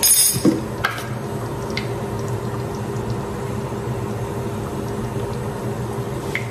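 Steady simmering of a pot of chicken masala on a gas stove, with a short plastic rattle at the start and a few light clicks as a plastic spice jar is handled and spooned from.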